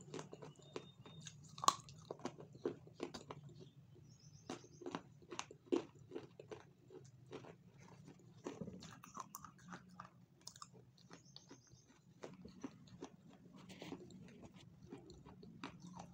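Close-miked chewing of a chocolate-coated snack: a quick run of small crunches and mouth clicks, a few a second.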